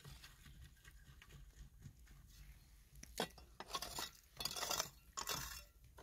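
Household utensils and pots being handled: after a quiet start, a handful of short clinks, knocks and scraping clatters in the second half.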